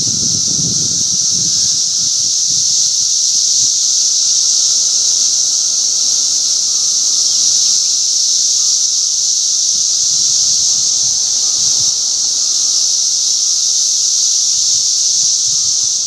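Chorus of periodical cicadas: a loud, steady, high-pitched buzzing drone that never breaks. A low rustle of wind in the leaves sits under it in the first couple of seconds.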